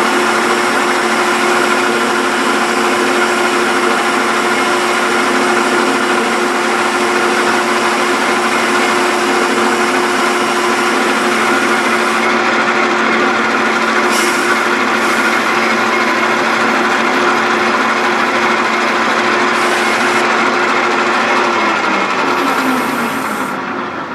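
Metal lathe running under power, taking a finishing turning cut on a pulley blank with a steady hum and cutting hiss. About three-quarters of the way through, the motor is switched off and the hum falls in pitch as the spindle coasts down.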